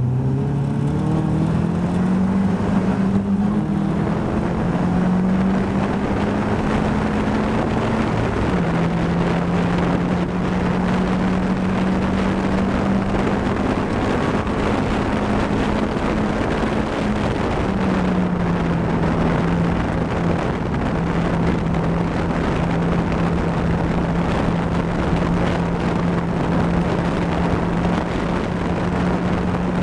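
Caterham Seven race car's four-cylinder engine heard from inside the cockpit, accelerating hard out of a slow corner. Its pitch climbs through the gears with a shift about eight seconds in. The revs hold high down the straight, then drop about eighteen seconds in and stay steady through the following fast bend.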